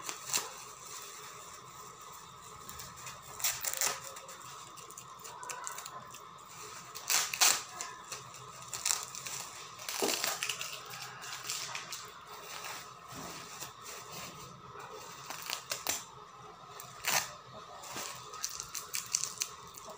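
Thin plastic bag crinkling and tearing as its knotted top is picked and pulled open by hand, in scattered short crackles.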